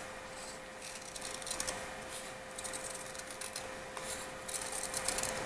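Scissors snipping through a 3D Bondo transfer and its transfer sheet, trimming off the excess in a series of short, crisp cuts that come in small runs.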